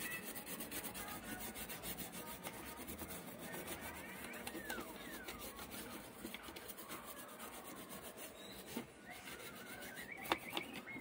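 Toothbrush bristles scrubbing rapidly back and forth over a graphics card's circuit board, a fast, dense scratching, with a few sharp ticks near the end.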